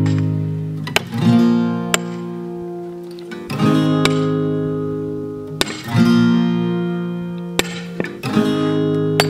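Strummed acoustic guitar music, a new chord about every two seconds, with a few short sharp knocks heard under it.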